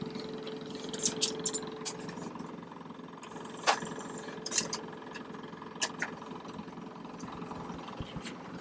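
An engine idling steadily, with sharp, irregular clicks and clacks of tools or hard objects being handled over it.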